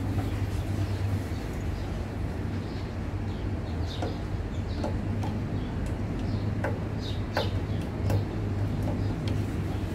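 Scattered light clicks and taps as parts of a lawn mower engine are handled and fitted by hand, over a steady low hum, with birds calling in the background.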